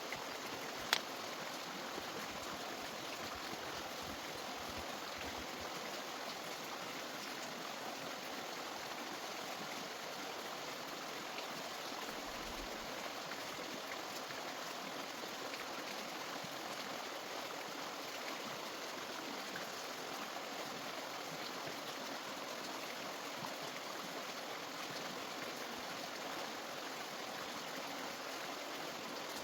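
Steady sound of running water, with one sharp click about a second in.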